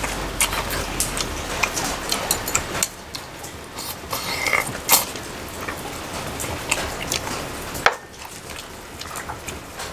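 Close-up eating sounds of spicy braised monkfish (agujjim): chopsticks clicking against a small bowl and wet, crunchy chewing, as many irregular sharp clicks.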